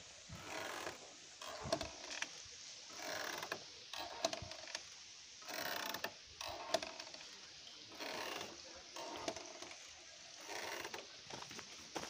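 Metal chains of a swing grinding and creaking in a slow, regular rhythm as the swing goes back and forth, about once every second and a half.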